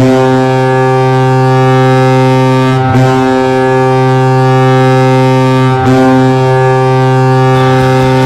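Ice hockey goal horn of Sibir Novosibirsk's arena: a loud, low, steady horn sounding three long blasts back to back, each about three seconds. The third blast is still sounding at the end.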